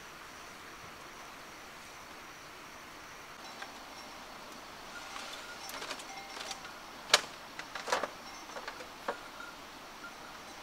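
Steady high insect drone, with a cluster of sharp knocks and clicks in the second half, the loudest about seven seconds in and another just after.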